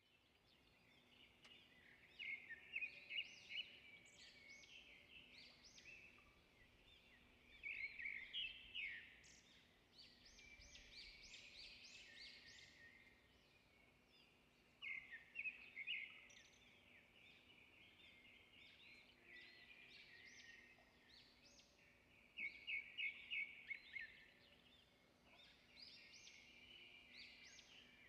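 A small bird chirping and twittering, with a burst of five or six quick, sharp high notes recurring about every six to seven seconds and softer twittering between the bursts.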